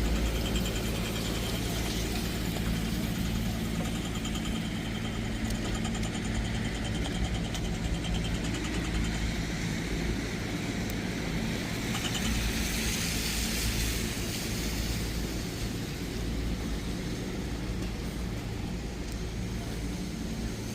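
Street traffic: a motor vehicle's engine running steadily nearby, with a hiss that swells briefly about twelve seconds in.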